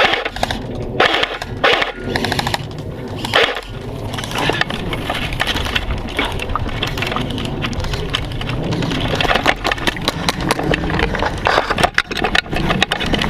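Airsoft guns firing: scattered sharp clicks and snaps, a few early on and then a dense run of shots over the last few seconds, over steady rustling noise.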